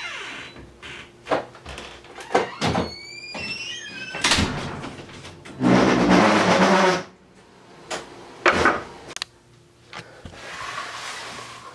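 Household door and handling noises: a door squeaking as it swings, knocks and bumps, and one loud, rough, noisy stretch lasting about a second and a half near the middle.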